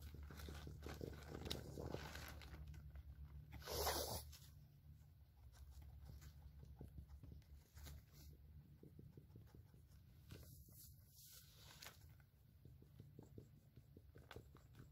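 Near silence with faint rustling of a plastic tarp being handled, and one brief louder rustle about four seconds in.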